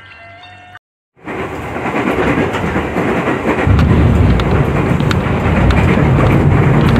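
Loud, steady rushing and rumbling noise of a moving vehicle. It starts abruptly about a second in and grows heavier in the low rumble about halfway through.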